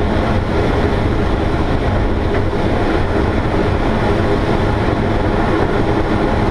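MDM-1 Fox glider rolling along the runway on its wheel, a loud steady rumble mixed with air rushing past the canopy, heard inside the cockpit.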